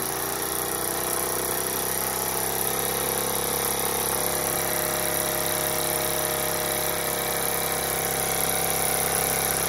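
Jensen 25GR toy live-steam engine running freely with its throttle opened up. Its running sound rises in pitch over the first couple of seconds as it speeds up, then holds steady and smooth.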